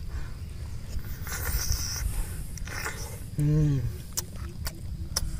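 Someone eating santol fruit: biting and sucking at the juicy pulp, with a short hummed "mm" a little past the middle and a few sharp wet mouth clicks after it.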